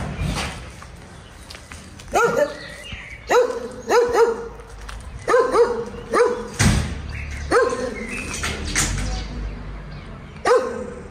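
A dog barking repeatedly, short barks singly and in quick pairs at uneven intervals.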